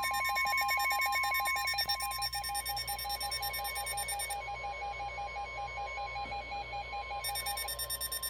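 Emergency alert warning tone: a steady single-pitch alarm near 1 kHz, the weather radio's 1050 Hz warning alarm tone that comes before a new warning message. A rapid electronic beeping alarm from a receiver sounds over it and thins out about halfway through.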